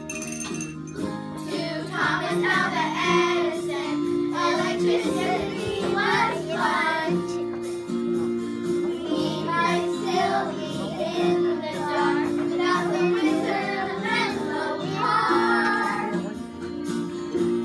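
A group of children singing a song together over instrumental accompaniment, the voices coming in about two seconds in.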